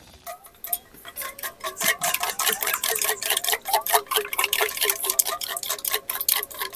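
Wooden chopsticks whisking briskly inside a small stainless steel cup: a fast, even run of clicks against the metal, each with a slight metallic ring.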